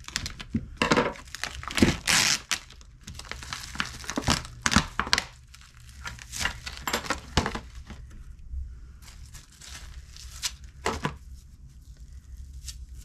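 Plastic film on a supermarket tray of raw chicken breasts crinkling and tearing in irregular crackles as it is pulled open by hand and the breasts are taken out.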